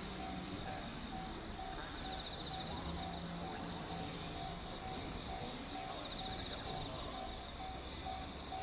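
Insects chirping steadily in high, pulsing trills, with a faint short tone beeping over and over at an even pace beneath them.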